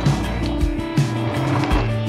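Background music with a steady beat and held synth-like tones.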